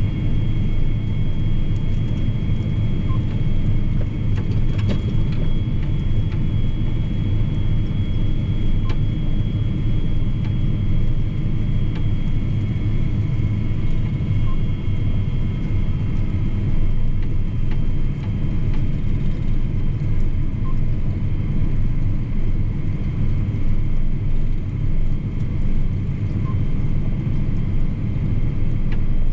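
John Deere 8245R tractor heard from inside its cab while driving on the road: a steady, deep engine and drivetrain rumble with a faint, steady high whine above it.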